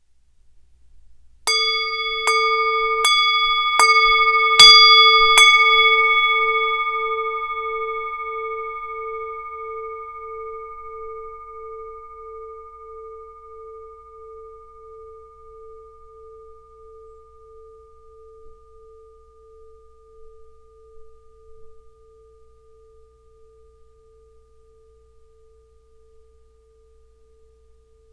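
Tibetan singing bowl struck six times in quick succession, the fifth strike the loudest, then left to ring. Its low hum pulses slowly as it fades away over about twenty seconds.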